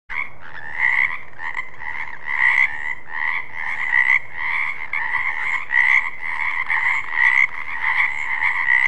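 Frogs croaking in a dense chorus of overlapping calls, with louder croaks standing out every second or so. The sound starts abruptly and cuts off suddenly at the end.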